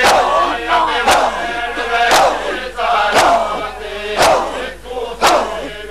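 Crowd of mourners doing matam: a sharp collective slap of hands striking bare chests about once a second, with men shouting and chanting between the strikes.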